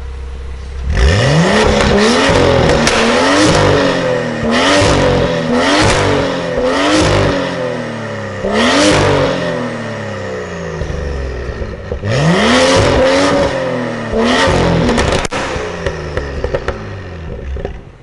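BMW M2 F87's turbocharged straight-six, breathing through an Akrapovič titanium full exhaust system, revved hard in neutral: idling, then from about a second in a long climb and a string of quick blips, a bigger rev about halfway through, a couple of seconds back at idle, then another round of blips. Sharp pops and crackles come on the overrun as the revs drop, with one loud crack a few seconds from the end.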